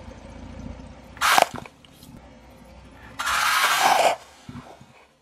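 Car tyre crushing a block of dry floral foam with bars of soap set into it: a short sharp crunch just over a second in, then about a second of loud, dense crunching a little after three seconds in as the foam gives way.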